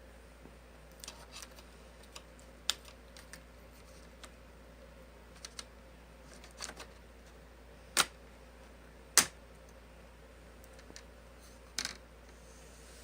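Plastic screen bezel of an Asus X555U laptop being pressed back onto the lid: scattered light clicks and taps, with two loud, sharp snaps about a second apart past the middle as its clips catch.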